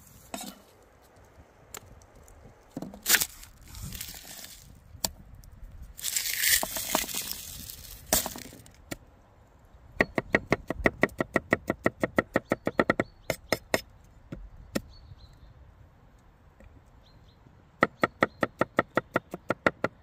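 Cleaver chopping food on a wooden cutting board. There are scattered knocks and some scraping in the first half, then a fast, even run of chops lasting about three seconds, and another short run near the end.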